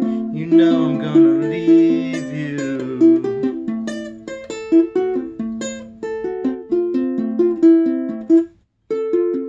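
Ukulele fingerpicked in a steady run of arpeggiated notes that ring into each other. The sound cuts out briefly near the end, then the picking resumes.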